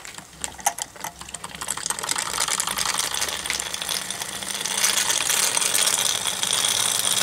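Wilesco toy steam engine running, a rapid mechanical ticking and clatter mixed with steam hiss. It starts with a few clicks, builds over the first couple of seconds and gets louder about five seconds in as more steam is let through.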